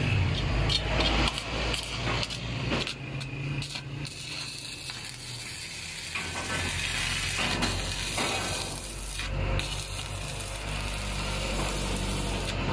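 Stick (MMA) arc welding with a Miltec MMA 300 inverter welder: the arc crackles and hisses steadily over a low hum. It is a test weld after a repair, and the welder strikes and holds an arc.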